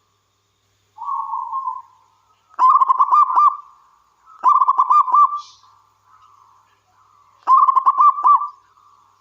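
Zebra dove (perkutut) cooing. A soft lead-in coo comes about a second in, then three loud phrases of rapid staccato coos, each about a second long, a couple of seconds apart.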